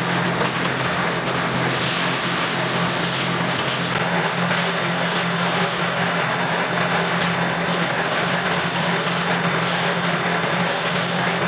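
Steady drone of a corrugated-paper gluing machine with lifter running in a cooling-pad production line: a low electric motor hum under a broad even machine noise.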